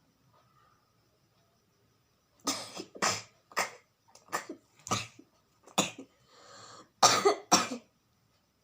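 A woman coughing in a series of about eight short, sharp bursts, starting about two and a half seconds in, with a hissing breath between the last ones, brought on while she is trying to make herself sneeze.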